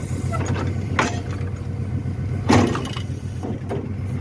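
Mercedes-Benz Econic garbage truck running with a steady low drone, with sharp knocks from the rear loader about a second in and a louder one about halfway through.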